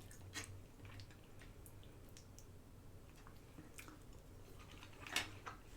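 Quiet chewing of food, with scattered faint wet mouth clicks and one louder short mouth sound about five seconds in.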